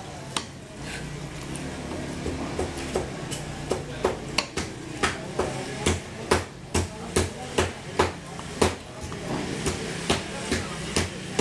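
Knife blade knocking repeatedly on a wooden log chopping block while cutting up a baam (spiny eel), a few scattered strikes at first and then about two sharp knocks a second, over a steady low hum.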